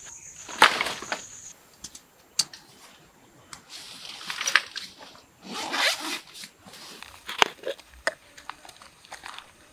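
A zipper pulled in three short rasping strokes, the first the loudest, with sharp handling clicks between them. A steady high insect buzz cuts out about a second and a half in.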